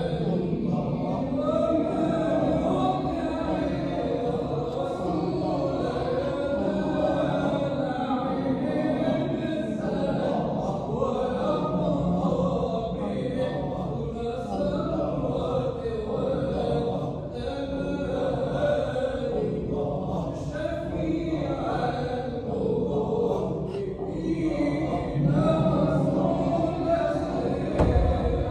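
Sufi hadra dhikr: a large group of men's voices chanting together without a break, over a steady low held pitch.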